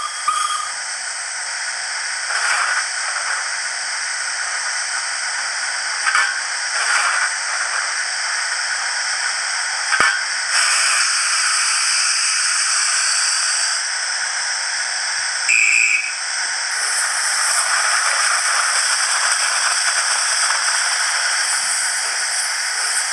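Hornby HM7000 sound decoder playing the W1 steam locomotive sound file through the small kit-supplied speaker: a steady hiss of steam with a few short bursts and a brief whistle-like tone about midway. The sound is thin, with almost no bass.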